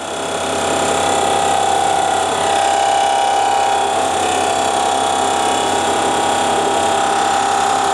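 Fly cutter at 2,000 RPM on a CNC mill's 3-horsepower spindle, face-milling across the top of a metal part at a slow feed, taking off about ten thousandths: a steady cutting sound with one strong steady tone through it, slightly louder after the first second. The cutter is running quite a bit out of balance.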